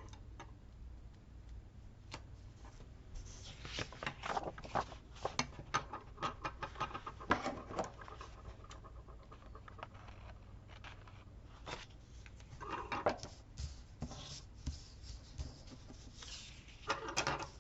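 Paper and sticker sheets rustling and crackling as stickers are peeled and handled, in a long run of crinkles a few seconds in, a shorter one past the middle and again near the end, over a faint steady low hum.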